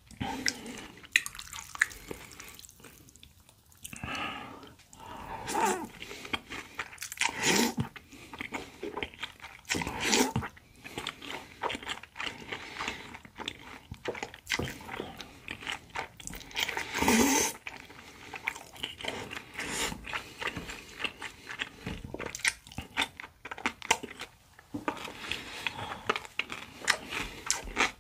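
Close-miked eating of spicy whelk and cucumber noodle salad: wet chewing and crunching, with a few longer, louder slurps of somen noodles.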